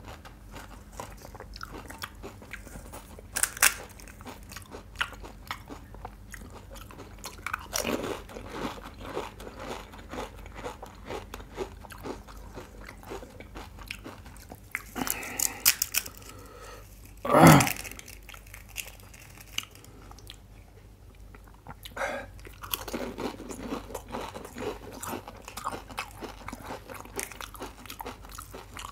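Close-up eating of pani puri: crisp, hollow puri shells crunching and being chewed, with many small crackles and several denser bouts of crunching. One louder burst stands out a little past the middle.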